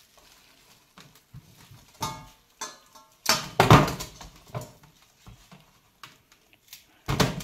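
Raw fish pieces being handled out of a plastic bag into a stainless steel bowl: scattered crinkles and wet knocks against the metal, with a louder thump about three and a half seconds in and another near the end.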